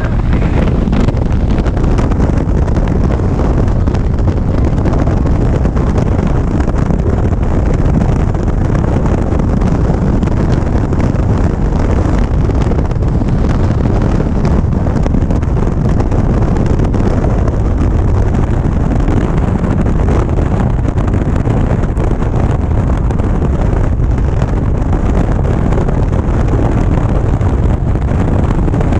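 Steady wind rush buffeting a GoPro microphone on a moving Harley-Davidson Ultra Limited motorcycle, mixed with the bike's V-twin engine and road noise at cruising speed.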